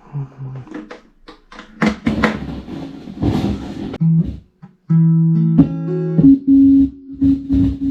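Guitar played through a portable outdoor speaker: a few knocks and scratchy string noises at first, then, about five seconds in, loud amplified guitar notes ringing out one after another.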